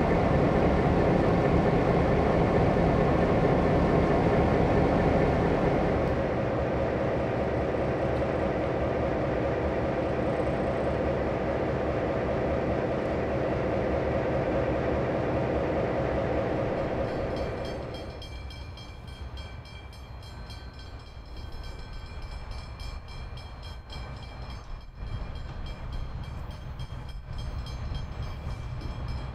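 Y class diesel-electric locomotive's EMD 6-567C engine idling steadily, a little quieter after about six seconds. About eighteen seconds in it gives way to a much fainter distant train that grows slowly louder toward the end as it approaches.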